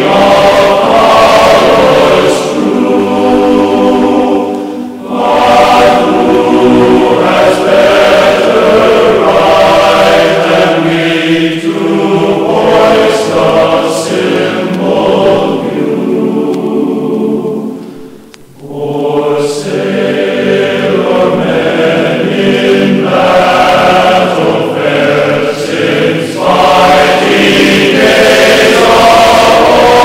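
A choir singing slow sacred music in long held chords, with a short break in the singing about two-thirds of the way through.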